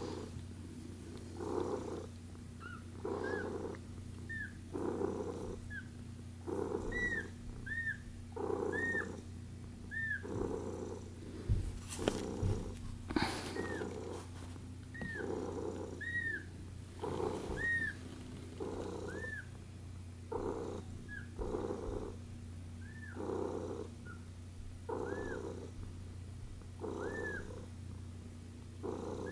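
One-week-old kittens cheeping: short, high, rising-and-falling squeaks, roughly one a second, over a cat's purr that swells and fades with each breath about every two seconds.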